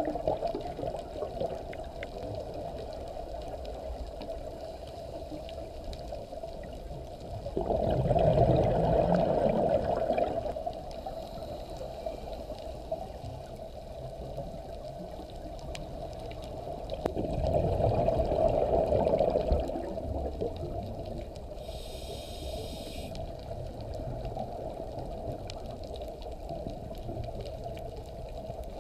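Muffled underwater sound through a camera housing: a steady low rush, broken twice, about ten seconds apart, by a louder rush of scuba exhaust bubbles as a diver breathes out through the regulator. Near the end comes a brief higher hiss.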